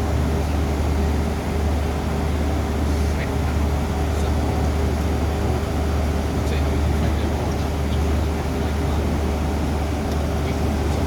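Cessna 425 Conquest's twin Pratt & Whitney PT6A turboprop engines running, heard inside the cockpit as a steady, loud low drone with a steady tone.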